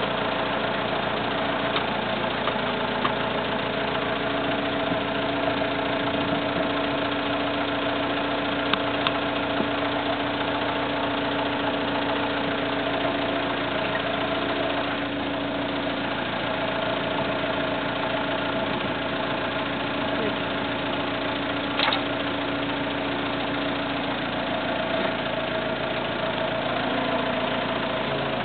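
Tractor engine running steadily at a constant speed, driving a homemade stump grinder, with no revving or grinding load. A single brief click about three-quarters of the way through.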